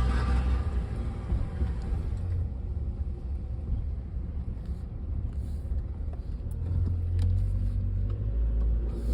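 2003 Honda Element's 2.4-litre four-cylinder running with a low exhaust rumble that eases off in the middle and builds again near the end, with a few faint clicks. The uploader traced the car's noises to a loose exhaust-manifold heat shield and a broken-up catalytic converter rattling inside the muffler.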